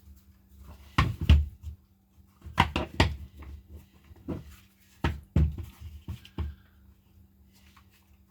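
Knocks and clicks of the plastic clamshell case of a Makita DTD154 impact driver as its two halves are handled and fitted together. They come in several short clusters, with quiet gaps between.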